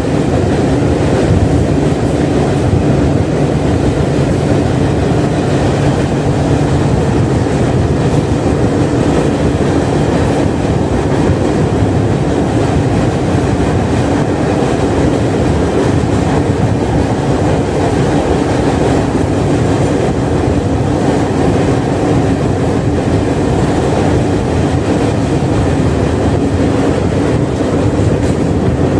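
Moving passenger train heard from inside a coach near the door: a loud, steady rumble of the wheels running on the rails.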